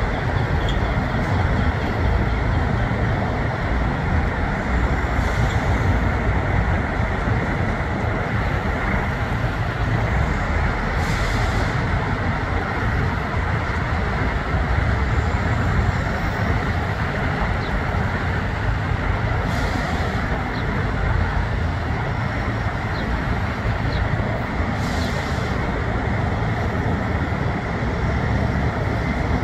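Steady low rumble of truck engines and traffic, with a few short hisses.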